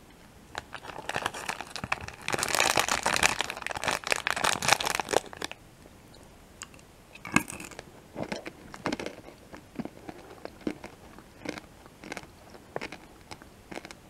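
A plastic M&M's packet crinkles and crackles for about five seconds. Then M&M's candies crunch between the teeth as they are chewed, in separate crunches roughly every half second to second.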